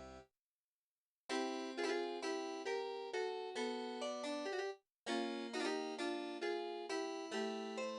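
Background keyboard music: a plinking melody over held low notes in two short phrases, starting about a second in and pausing briefly near the middle.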